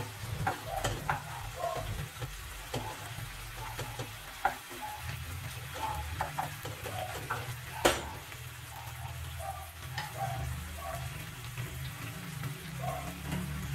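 Wooden spoon scraping and tapping in a nonstick frying pan while canned tuna sautéed with garlic and onion sizzles, with a sharp knock about eight seconds in.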